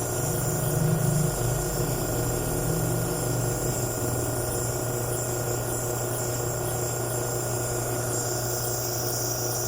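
Steady machine hum: a constant low drone with several unchanging tones above it, slightly louder in the first second or two.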